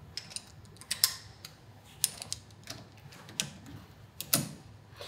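Hand tools clicking and clinking on the brake master cylinder's fittings: about a dozen sharp, irregular clicks, the loudest about a second in and just after four seconds.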